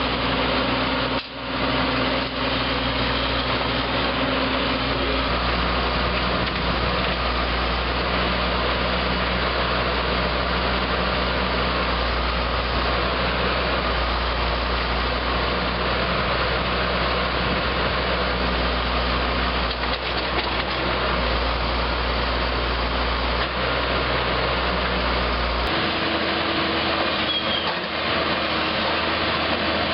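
Heavy work machinery engines running steadily. Near the end the deep low rumble stops and a higher steady hum takes over.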